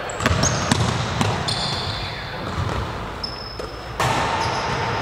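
A basketball bouncing on an indoor court during a pickup game, with several short high squeaks.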